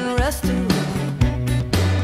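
Background music: a pop song with a steady beat and a bass line.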